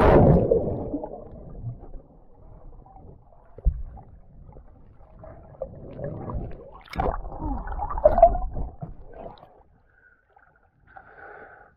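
Lake water splashing and sloshing over a waterproof action camera as it dips under the surface, heard muffled and gurgling while underwater. A loud splash right at the start, more splashing about seven to eight seconds in, then it goes much quieter.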